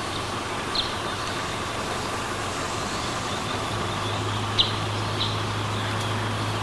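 Steady outdoor background noise with a few short, high chirps, one of them sharper and louder about four and a half seconds in, and a low steady hum that comes in a little before four seconds in.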